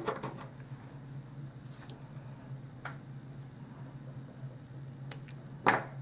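Small embroidery scissors handled and snipping a strip of silver paper: a few faint clicks, then one sharper click near the end.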